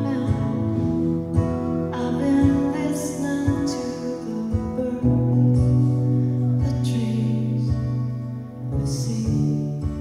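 Live folk song: a woman singing to her own strummed acoustic guitar, with a keyboard holding low sustained chords underneath.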